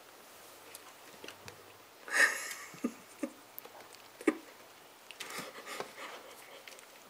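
A kitten clambering about in a plastic basket carrier, with a few sharp knocks as it scrabbles at the plastic. Two short breathy puffs of noise come from the cats as they meet nose to nose, one about two seconds in and a fainter one past the middle.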